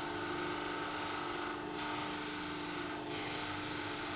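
Benchtop spindle sander running with a steady motor hum, its sanding sleeve grinding against wood with a hiss that breaks off briefly twice.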